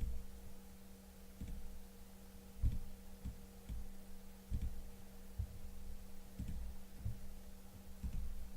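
A steady low electrical hum with about ten soft, dull thumps at irregular intervals, like light bumps on a desk or microphone.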